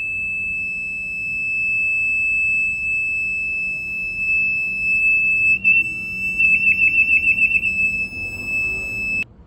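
High-water alarm sounding a steady, high-pitched tone during a test. It briefly wavers with a quick flutter a little past halfway and cuts off suddenly near the end.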